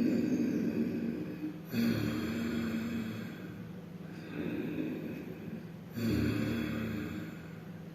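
Ujjayi breathing: a person breathing deep into the chest and out through a narrowed throat, the air audibly rubbing in the throat. There are about four long breath strokes, each starting sharply and fading.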